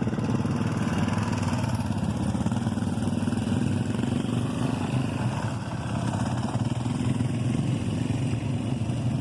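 Dirt bike engine running at a fairly steady speed.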